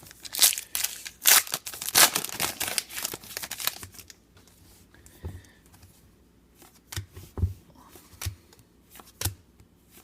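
Foil trading-card pack wrapper crinkling and tearing for a few seconds, then a few soft taps and knocks of cards being handled.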